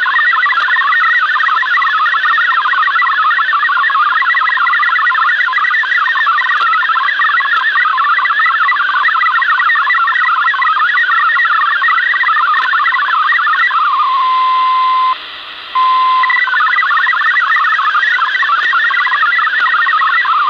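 MFSK digital text transmission from a Yaesu FRG-7700 shortwave receiver: a dense warble of rapidly hopping tones over a steady hiss of band noise. About fourteen seconds in, the warble gives way to a single steady tone, cuts out briefly, and the hopping data tones start again a couple of seconds later.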